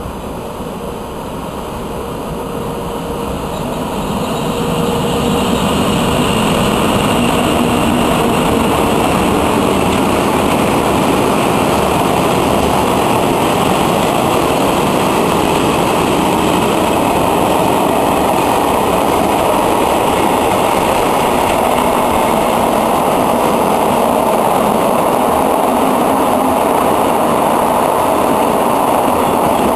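Freight train hauled by an electric locomotive approaching and passing close by. The noise of wheels on rails grows over the first five seconds or so, then holds steady as the wagons roll past.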